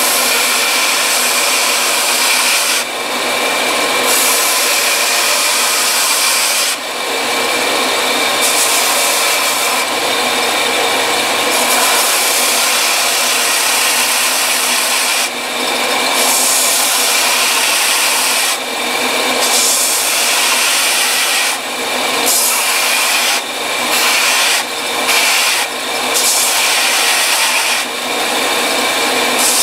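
Belt sander running while a rubber recoil pad and the wooden stock behind it are sanded on the slack side of the belt. The rasping grind comes and goes many times, more often near the end.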